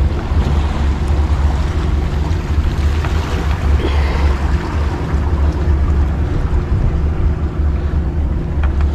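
Wind buffeting the microphone in a steady low rumble, with the wash of waves against shoreline rocks beneath it.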